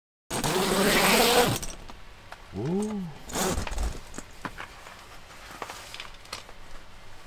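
A tent door zipper pulled open in one long rasp, then a second shorter scraping burst and a few light clicks. A short rising-and-falling tone sounds about two and a half seconds in.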